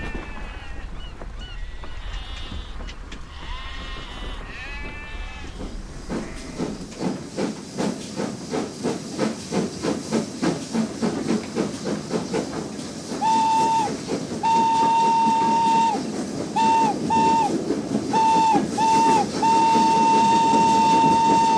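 Steam locomotive getting under way: its exhaust chuffs come faster and faster from about seven seconds in. Its whistle then blows several short blasts and a long one near the end. A few brief wavering calls sound in the first seconds.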